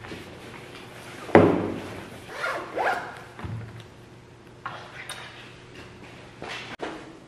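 Belongings being packed into a bag: a thump of something set down on the table about a second in, then a bag zipper pulled in two quick strokes, followed by softer rustling and small knocks.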